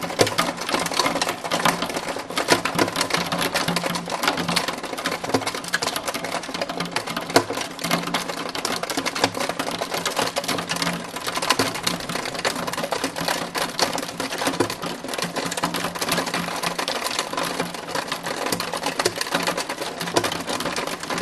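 Hailstones pelting a hard surface: a dense, rapid, steady clatter of impacts.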